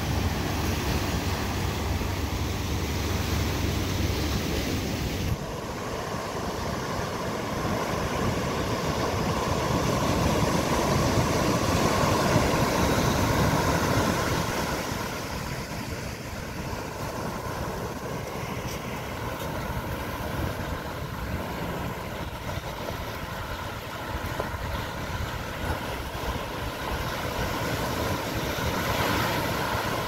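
Pacific Ocean surf: waves breaking and washing in a steady rushing hiss. The sound changes abruptly about five seconds in, then a wave swells louder around the middle and falls back to a softer wash.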